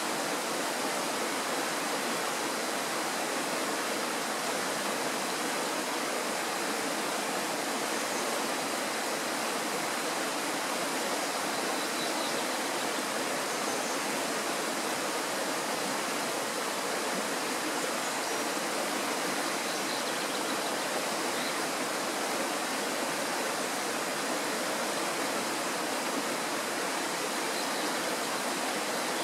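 Kirowa Woda, a Tatra mountain stream, rushing steadily: an even, unbroken water noise.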